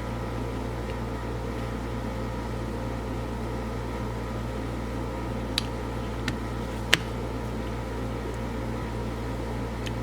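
Steady mechanical hum, with a few short sharp clicks about five to seven seconds in, the last the loudest.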